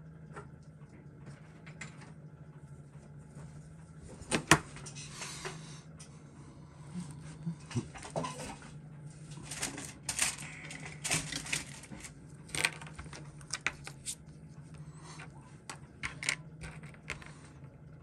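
Scattered light clicks and taps of a watch case and small tools being handled on a workbench mat. The sharpest knock is about four and a half seconds in, with more clicks from about ten to thirteen seconds, over a steady low hum.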